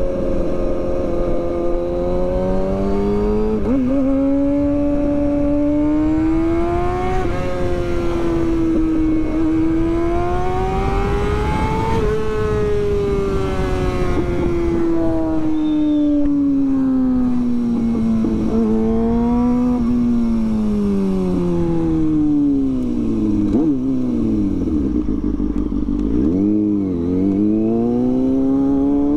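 Kawasaki Ninja sportbike engine under way, its revs rising and falling through gear changes over wind rush. Near the end the revs drop low as the bike slows, then pick up again.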